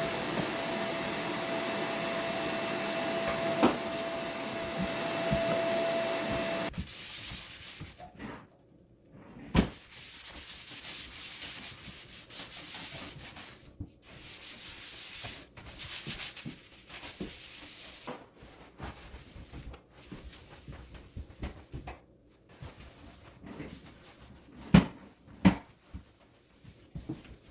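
A vacuum cleaner runs with a steady whine, its hose sucking out a wooden drawer, and cuts off abruptly about a quarter of the way in. Then a sanding block is rubbed by hand over a wooden tabletop in short bursts of strokes, with a few sharp knocks.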